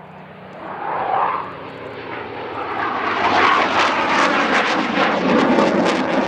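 Engine noise of a Eurofighter Typhoon and a Merlin-engined Spitfire flying past together in close formation, growing louder over the first few seconds and then staying loud with a crackling rumble.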